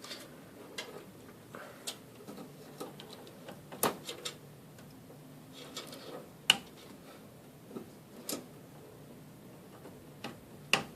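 PCIe power cable connectors being handled and plugged into a graphics card: scattered sharp plastic clicks and taps at irregular intervals, the loudest about four seconds in.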